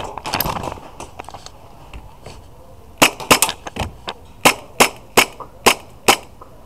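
KWA M93R2 gas blowback airsoft pistol firing about nine shots in quick succession, starting about three seconds in. Each shot is a sharp crack.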